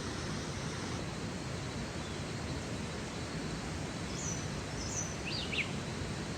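Steady rushing outdoor ambience of the cloud forest. A bird chirps a few times, short and high, from about four to five and a half seconds in.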